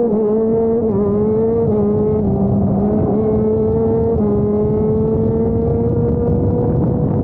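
TM Racing KZ-R1 125 cc two-stroke shifter kart engine running hard, heard from on board. Its pitch dips and steps briefly near the start, about a second in and about four seconds in, then holds nearly level for the rest.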